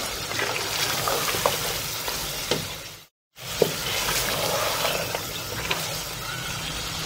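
Mutton masala sizzling as it fries in ghee in a cooking pot, with a spoon clicking against the pot a few times as it is stirred. The sound drops out completely for a moment about halfway through.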